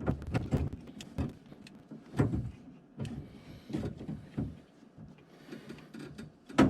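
Compact tube cutter being turned around a half-inch copper pipe, its cutting wheel scoring through the pipe, heard as irregular clicks, knocks and scraping. A louder knock comes near the end.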